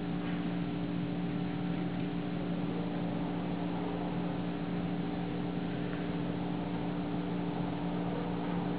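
Steady background hum and hiss, with a couple of faint, brief sounds over it.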